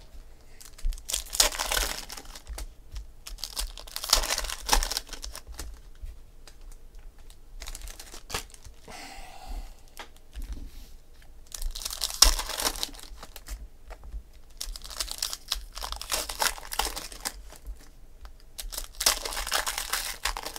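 Foil trading-card packs being crinkled and torn open by hand, in several separate bursts of crackly rustling with quieter pauses between.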